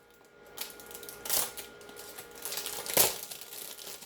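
Small cardboard toy boxes being handled: rustling and crinkling with a few sharp taps, the loudest about three seconds in.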